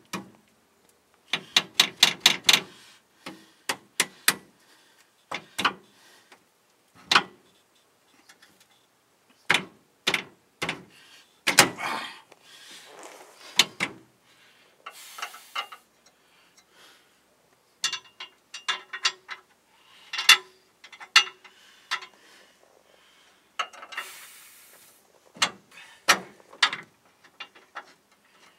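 Hand ratchet wrench clicking in short quick runs, with metal clinks, as the rear bumper's mounting bolts are run in on a 2003 Toyota Tacoma.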